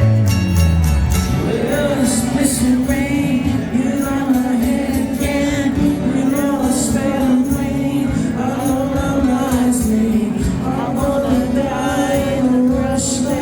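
Live acoustic rock band playing: singing over acoustic guitar accompaniment, with the vocal line coming in about a second and a half in.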